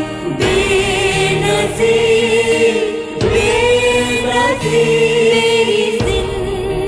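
Background music with singing: voices hold long, wavering notes over a steady low accompaniment, changing phrase every second or two.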